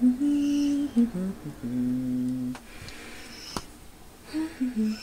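A woman's voice crooning a wordless "ooh" tune, held notes stepping up and down, with one sharp click about three and a half seconds in.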